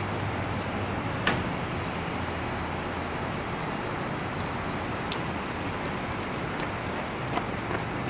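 Steady vehicle engine and traffic noise, with a sharp click about a second in and a few lighter clicks near the end.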